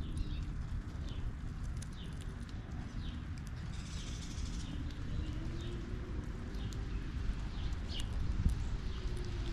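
Small birds chirping in short high notes, roughly once a second, over a steady low outdoor rumble and a faint drifting drone.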